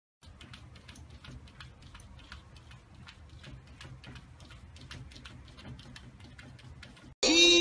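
Cats' paws tapping and scratching at a glass door: rapid, irregular light clicks over a low hum. Music starts abruptly near the end.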